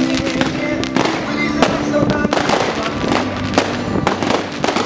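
Fireworks display: a string of sharp bangs and crackles from bursting shells, with music playing underneath.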